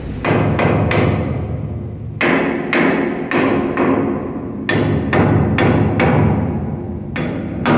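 Hammer blows on the metal top cover of a bilge line valve, about fourteen strikes in uneven runs of two to five, each with a brief metallic ring. The cover's bolts are out and it is being hammered to free it and clear a clogged bilge line.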